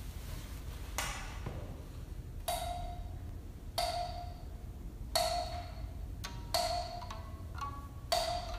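Six sharp percussive knocks, about one every second and a half, each with a short pitched ring that fades quickly. They sound over a steady low rumble, with a few smaller ringing taps between the last strikes. The knocks stand for raindrops in a storm sound piece.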